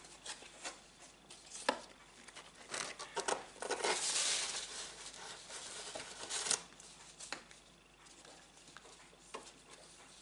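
Large sheets of card stock being lifted, flipped and slid over one another, making a papery rustle with scattered light taps. The longest swish comes about four seconds in and a shorter one at about six and a half, and it is quieter near the end.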